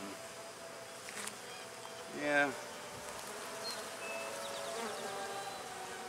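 Honeybees buzzing around an opened hive: a steady drone of several slightly wavering tones.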